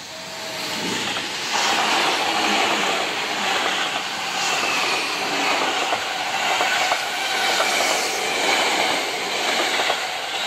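A Seibu 40000-series electric commuter train passes close by. The rumble builds over the first second and a half, then holds loud, with the wheels clicking over rail joints.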